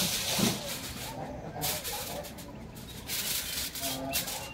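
Aluminium foil crinkling and rustling as it is handled and cut with a knife.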